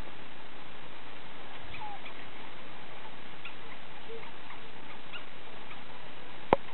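Faint short chirping calls of gelada baboons scattered over a steady hiss, with a single sharp knock near the end.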